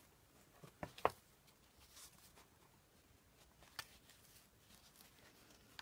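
Faint rustling of paper as sewing thread is pulled through the stitching holes of a journal signature, with a few small sharp clicks, the clearest about a second in.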